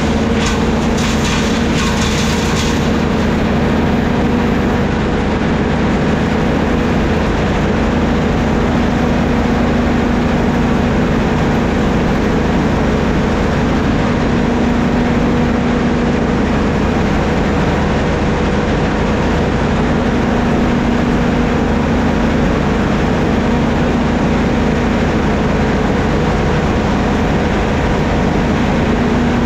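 Vintage sawmill machinery running steadily: a loud, even mechanical drone with a constant hum, some clicking in the first few seconds.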